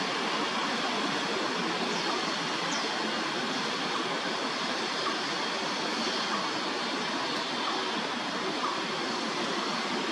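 Steady roar of city background noise, mostly road traffic, with a few faint high bird chirps a couple of seconds in.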